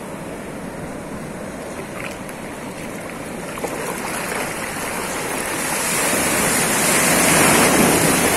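Sea surf washing through the shallows, an even rush of water that swells as a wave comes in over the second half, loudest near the end.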